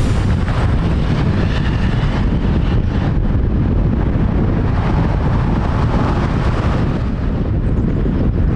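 Boeing 777's General Electric GE90 turbofan engines running, a loud steady rumble with wind buffeting the microphone; the higher hiss dulls about three seconds in while the low rumble carries on.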